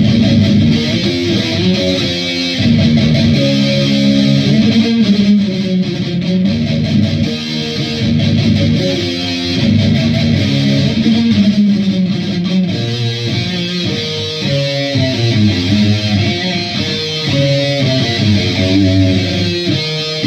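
Dean Cadillac electric guitar played through a Boss MT-2 Metal Zone distortion pedal into an Orange Super Crush 100 amp, playing distorted riffs and chords without a pause.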